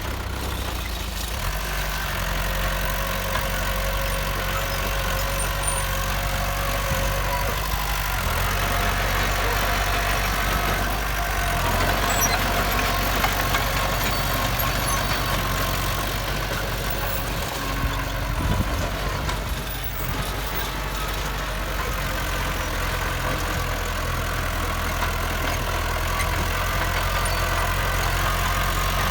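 Heavy diesel engine of road-building machinery running steadily, with its note shifting slightly now and then.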